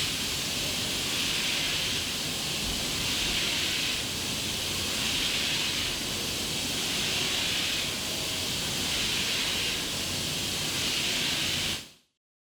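CNC milling of a forged C450 steel compressor blade: a steady cutting hiss with a low rumble underneath, swelling and easing about every two seconds, ending abruptly near the end.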